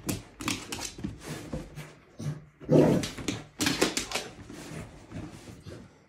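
A bull terrier nosing and pawing at a shaggy rug to cover its bone: quick scratching and rustling, broken by a couple of short low grunts about three seconds in.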